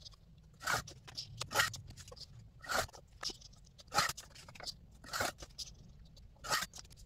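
Sliding rotary paper trimmer cutting card tags: the blade carriage scrapes along its rail in short swipes, about seven in all, roughly once a second, with card being shifted on the plastic bed between cuts.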